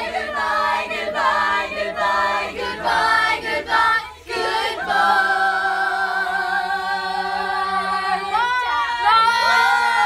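A group of teenagers singing together unaccompanied, loud and ragged: short sung notes at first, then a long held note from about five seconds in, breaking into voices sliding up and down near the end.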